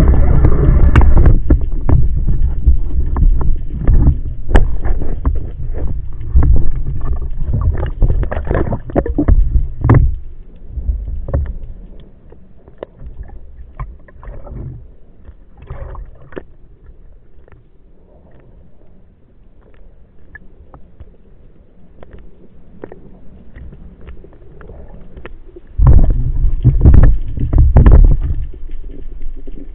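Muffled water noise heard through a waterproof camera housing on a spearfishing dive: low rumbling surges of moving water with scattered sharp clicks and crackles. The rumbling is heavy for the first ten seconds, eases into quieter clicking, and returns strongly for a couple of seconds near the end.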